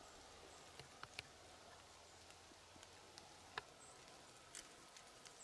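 Near silence: faint outdoor ambience with a few scattered faint, sharp ticks.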